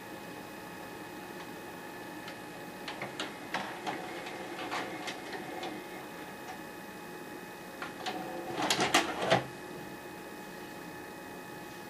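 Panasonic PV-1560 VHS VCR's tape mechanism clicking and clunking as it stops and unloads the tape, then a louder clatter of the cassette being ejected about three-quarters of the way through, over a steady faint hum.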